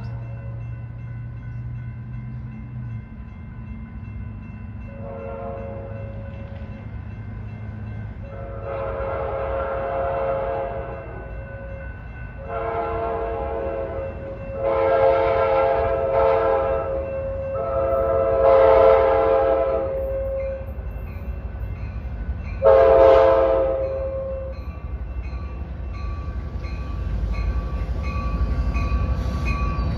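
Coaster EMD F59PHI locomotive's horn sounding a series of about six blasts as it approaches, the longest about two and a half seconds, over the steady ringing of grade-crossing bells. Near the end the deep rumble of the arriving locomotive and train grows.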